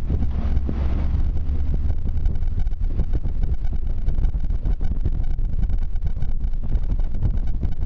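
Steady low rumble of a vehicle's engine and tyres on a gravel road, heard from inside the vehicle, with a brief rush of hiss about half a second in.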